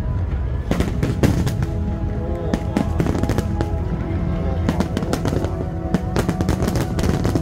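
Fireworks going off in clusters of rapid bangs and crackles, with music playing underneath.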